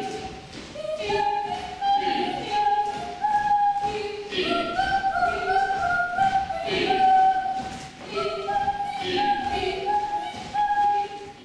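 A group of voices singing a cappella, a melody that steps from note to note in short repeated phrases.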